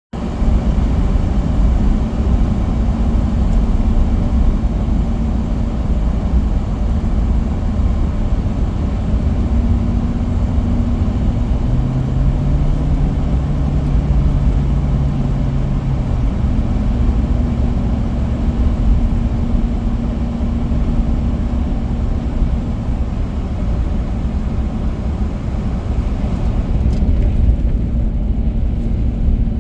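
Steady, loud low rumble of a car driving, road and engine noise, with a faint low hum that comes in for a few seconds in the middle.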